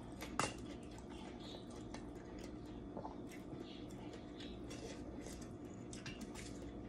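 Close-up eating sounds: chewing with small wet mouth clicks, and a metal spoon and fork clinking on a metal plate, with one sharper clink about half a second in. A steady low hum runs underneath.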